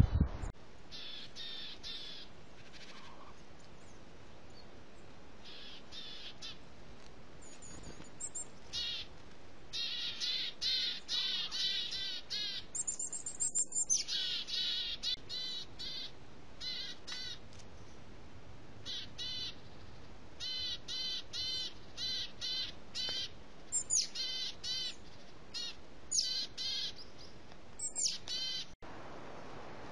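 Wild birds calling: repeated short series of rapid, harsh notes, with a few thin, high, gliding whistles among them, over a faint steady hiss.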